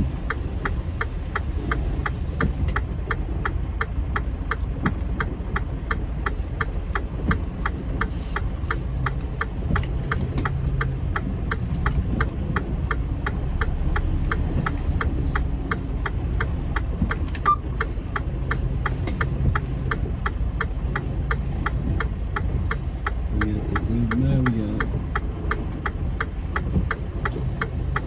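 Semi-truck's diesel engine idling with a low steady run, heard from inside the cab in the rain, with an even clicking about three times a second.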